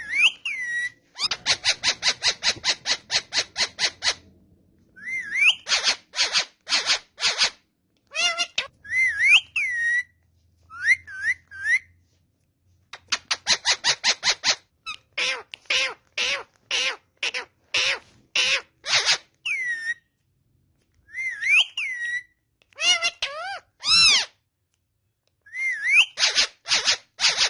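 Pet parrots calling: fast runs of repeated harsh chattering notes, about six a second, broken up by short whistles that rise and then fall.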